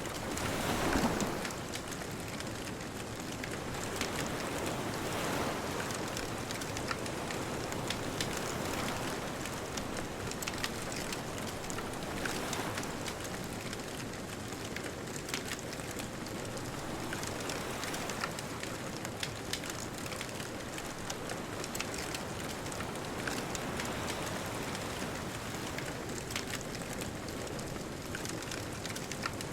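Wood bonfire crackling with frequent small pops, over distant ocean waves washing in slow swells every few seconds, the loudest about a second in.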